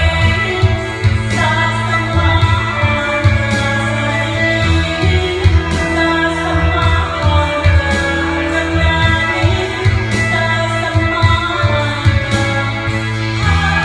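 Videoke backing track with a steady beat and guitar, with a woman singing over it into a microphone, both coming loud through the videoke machine's speaker.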